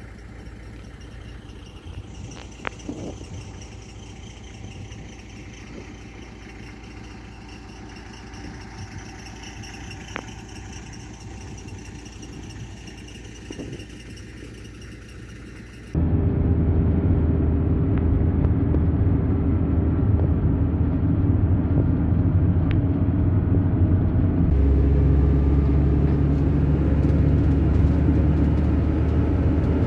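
Faint outdoor ambience with a low hum for about the first half, then the steady engine and road rumble of a motorhome being driven, heard inside the cab. The rumble comes in suddenly about halfway and deepens near the end.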